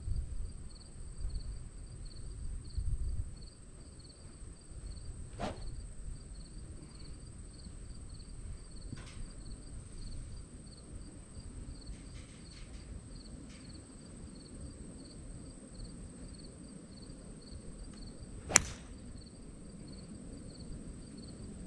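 A 2 hybrid golf club striking the ball off the tee: one sharp crack about three-quarters of the way through. Crickets chirp in a steady pulse throughout over a continuous high buzz, with a fainter click about five seconds in and a low rumble at the start.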